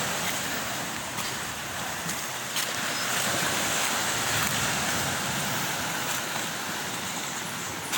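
Sea surf washing against a rocky shoreline, a steady rushing noise, with a few faint knocks.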